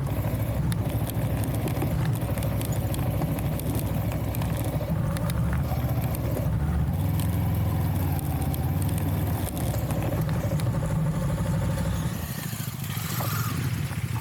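Motorcycle engine running under way on a rough off-road track, with scattered rattles and knocks. The engine note shifts partway through and eases off near the end.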